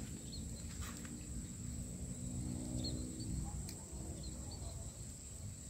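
Riverside ambience: a steady high-pitched insect drone, a few faint short bird chirps, and a low rumble underneath.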